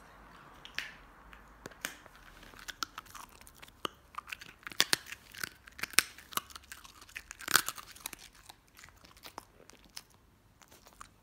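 A dog chewing a crunchy treat cookie, a run of irregular crunches that is thickest in the middle and thins out near the end.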